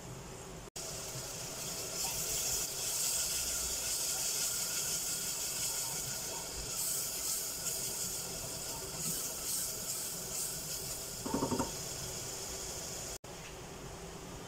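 Chopped onion sizzling in hot oil in an aluminium pressure cooker: a steady hiss that starts abruptly under a second in. A short louder sound about eleven seconds in.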